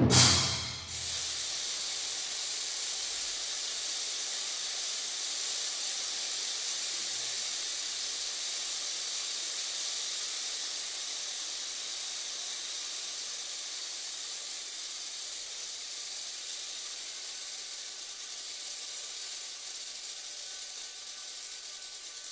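A percussion ensemble ends a loud drum swell with a hit at the very start, then sustains a steady high hiss that fades slowly, with faint steady tones coming in near the end.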